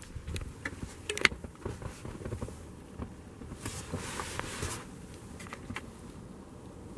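Handling noise from a handheld camera being moved inside a car: faint rustling and a few light clicks, sharpest about a second in, with a short hiss near the middle.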